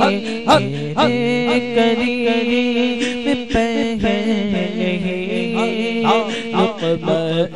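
Unaccompanied devotional naat singing: voices hold long, bending melodic lines that overlap in layers, with no instruments.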